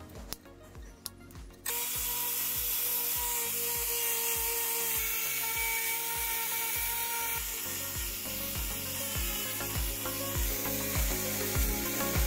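Handheld angle grinder running against a rusty metal pipe: a loud, steady grinding whine that starts suddenly about a second and a half in. Before it, a few light metal clicks and scrapes from pliers working on the rusty exhaust.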